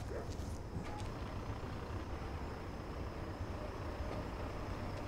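Steady low rumble of distant city traffic, with a faint thin high tone running through it.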